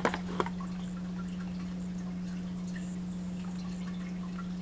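A steady low hum, with a few sharp clicks from a cardboard product box being handled right at the start and faint light ticks after.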